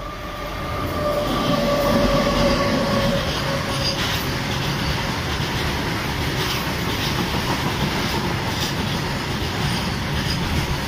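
WAG-9 three-phase electric locomotive and its long rake of covered freight wagons passing close at speed. It grows louder over the first two seconds with a faint whine that fades as the locomotive goes by, then settles into a steady rumble and wheel clatter as the wagons run past.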